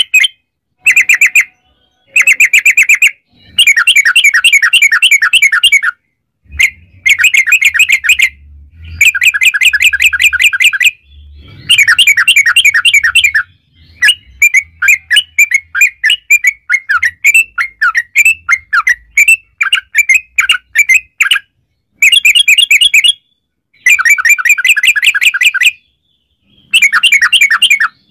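Yellow-vented bulbul (trucukan) singing in fast rattling runs of rapidly repeated chirps. The runs last one to two and a half seconds, with short pauses between them. Midway there is a looser stretch of separate, slurred notes.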